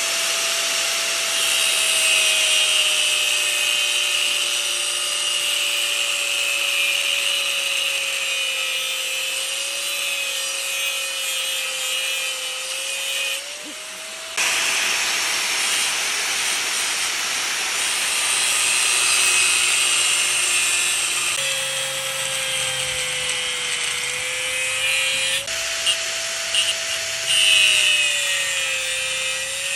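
Electric angle grinder with an abrasive disc grinding a steel bar. Its motor whine sinks in pitch as the disc bears on the metal and rises when it is eased off, under a gritty grinding noise, with a brief lull about halfway through.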